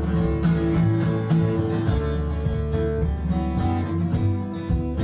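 Strummed acoustic guitar playing an instrumental break of a song, with steady evenly struck strums and ringing chords.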